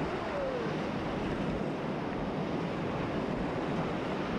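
Whitewater rapids of a mountain creek rushing steadily around an inflatable raft: a constant, even roar of churning water.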